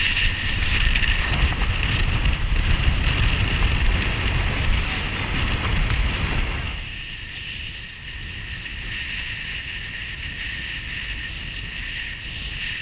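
A foiling RIB running at speed over the water: wind buffets the microphone and water rushes past, with a steady high whine throughout. About seven seconds in, the hiss thins and the sound drops a little quieter.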